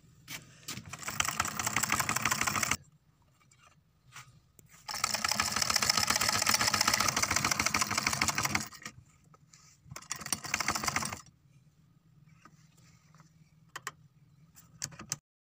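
Sewing machine running in three short bursts, the middle one longest, its needle stitching in place while the fabric does not feed forward, a sign of feed dogs set too low. A few light clicks follow near the end.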